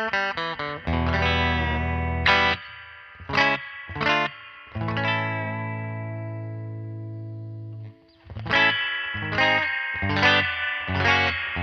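Hallmark Swept Wing electric guitar played through a Crazy Tube Circuits White Whale spring reverb pedal: picked notes and chords with a spring reverb trail. About halfway through, a chord rings out and fades, is muted suddenly at about eight seconds, and the picking then starts again.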